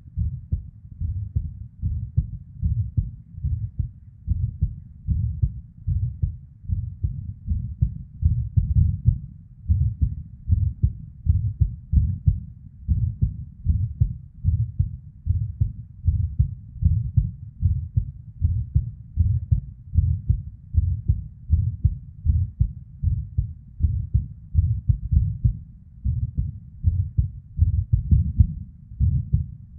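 A woman's irregular heartbeat recorded close up: low beats repeating a little more than once a second, with a blood-flow murmur, from a heart the uploader describes as having ectopic (PVC) beats.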